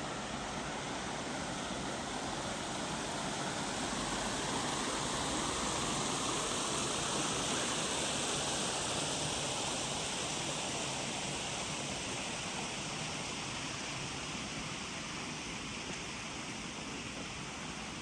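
Stream water running over rocks: a steady rush that swells a little in the middle and eases off toward the end.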